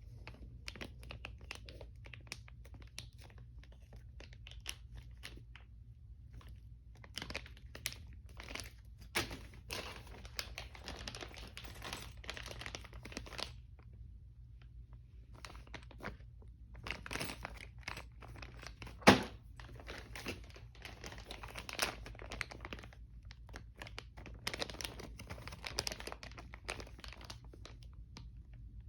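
Packaging being handled during an unboxing: plastic and paper crinkling and tearing in intermittent rustles, with one sharp knock about two-thirds of the way through.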